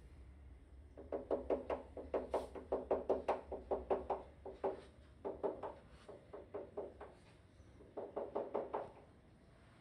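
Rapid knocking from the apartment upstairs, heard through the ceiling: three runs of quick, even knocks at about five or six a second, the first lasting nearly four seconds, over a low steady hum.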